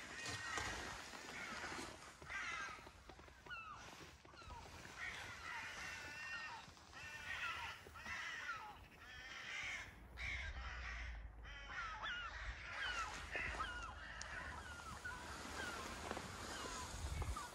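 A chorus of many birds calling at once, with short overlapping chirps and calls that keep going without a break.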